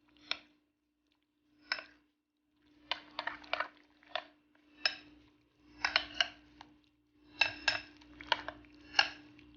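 A spoon clinking and knocking against a bowl in irregular strokes, some in quick runs of two or three, as chicken strips are stirred into a thick egg-and-cornflour marinade.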